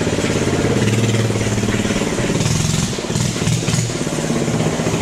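Minibike engine running loud, revving up and down as the throttle is worked.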